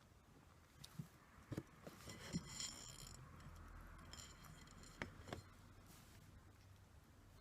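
Faint clicks and light taps, about five of them spread through a near-silent stretch, with a short crinkly rustle a little over two seconds in.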